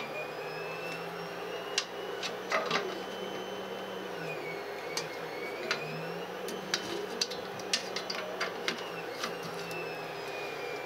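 Light clicks and knocks of plastic-wheeled carriages and metal frame parts being handled and fitted onto aluminium extrusion uprights, over a steady machine hum whose whining tones dip in pitch and rise again about halfway through.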